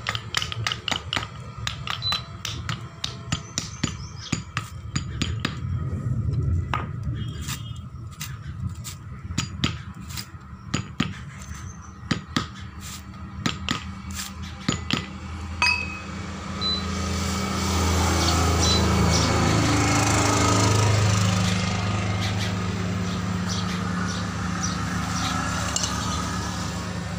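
Quick, irregular metal taps and clinks as a hand hammer strikes the steel ram and parts of a hydraulic bottle jack being taken apart. From about sixteen seconds in, a vehicle engine runs close by, growing louder for a few seconds and then easing off.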